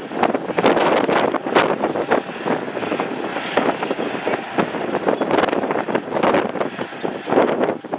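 Caterpillar D7 crawler bulldozer working in a field while pulling a plow: the machine runs steadily with irregular clanks and rattles.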